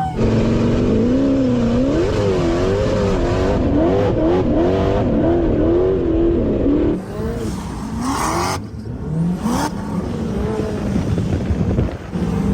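V8 engine revving hard in an off-road vehicle, its pitch rising and falling over and over for about seven seconds, then dropping back to quieter, uneven running. Two short bursts of hiss come around eight and nine seconds in.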